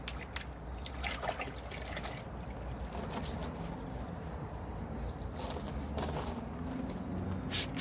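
Quiet outdoor background with a few faint clicks and a short bird chirp about five seconds in; just before the end a fast run of short, sharp strokes begins, about five a second.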